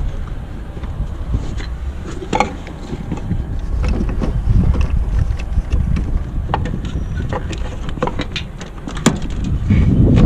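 Wind buffeting the microphone, with scattered light clicks and knocks of metal and hand tools as work goes on inside a vehicle; one sharp click about nine seconds in.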